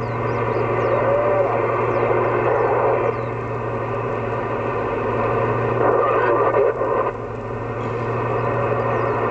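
CB radio on the 11-metre band hissing with open-channel static over a steady low hum, heard through the radio's speaker. Faint wavering tones come and go in the noise, and the hiss drops a little about seven seconds in.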